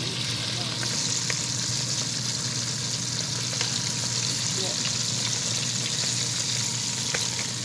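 Cornmeal-coated catfish nuggets deep-frying in hot oil: a steady sizzle and bubble that gets brighter about a second in. Metal tongs moving the pieces in the fryer basket give a few faint clicks.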